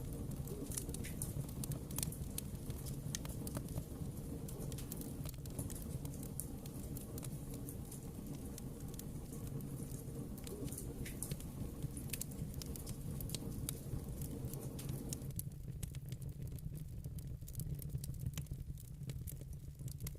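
Wood fire in a fireplace crackling, with many sharp pops over a low steady rumble. The crackling thins out about fifteen seconds in.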